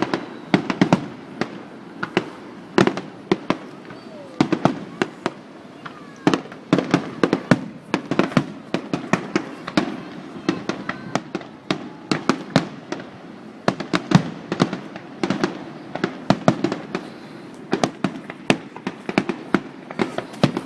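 Fireworks bursting in rapid volleys: dozens of sharp bangs and crackling reports in quick clusters, with short lulls between volleys.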